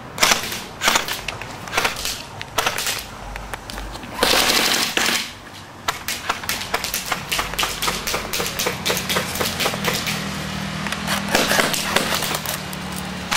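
Airsoft guns firing: repeated sharp cracks in irregular bursts, with a denser rattle about four seconds in.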